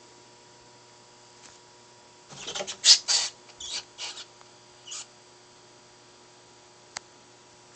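A red-tailed boa striking and coiling around a live rat: a sudden burst of rat squeals and scuffling in bark-chip bedding about two and a half seconds in, then a few shorter squeaks and scuffles over the next two seconds.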